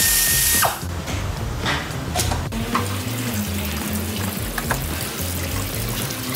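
Green engine coolant pouring out of an opened connection on a diesel engine and splashing down below, under background music. A loud hiss at the start cuts off under a second in.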